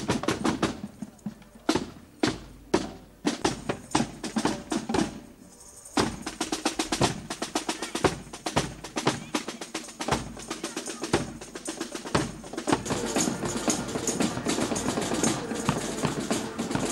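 Marching drum corps playing snare drums and bass drum: rapid snare strokes and rolls over bass drum beats, with a short break about five seconds in before the drumming picks up again.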